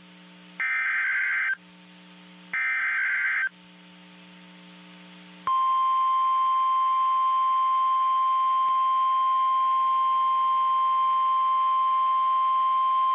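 NOAA Weather Radio emergency alert: two roughly one-second bursts of warbling SAME header data code, then from about five seconds in the steady, single-pitch 1050 Hz warning alarm tone that announces a warning. A faint low hum from the receiver is heard in the gaps between the bursts.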